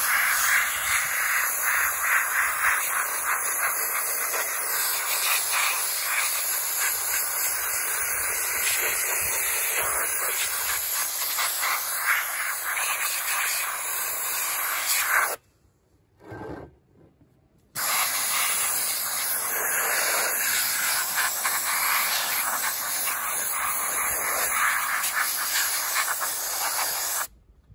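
Compressed air hissing steadily through a gravity-fed Harbor Freight soda blasting gun as it sprays baking soda onto a rusty cast iron base, stripping the surface rust. The hiss cuts off about fifteen seconds in, starts again a couple of seconds later, and stops just before the end.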